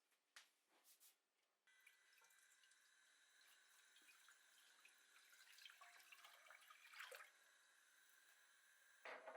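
Faint kitchen tap water running into a sink, starting about two seconds in with a slight whistle in the flow and stopping near the end, after a few light clicks at the start.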